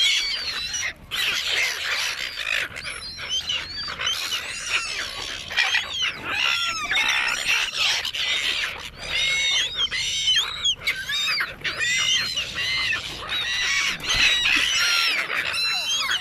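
A flock of seagulls calling at once, many short, arched, squealing calls overlapping without a break as they crowd for food.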